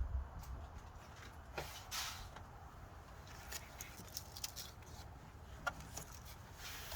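Faint, scattered clicks and light knocks of an ignition coil being handled and pulled out of the engine by hand, with the engine off.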